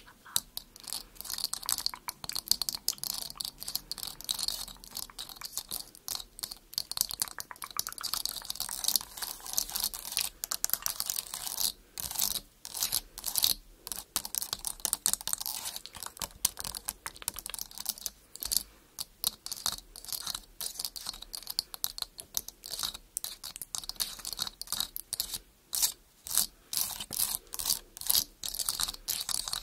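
Long fingernails rapidly tapping and scratching on a camera lens in a dense, irregular patter of crisp clicks and scrapes.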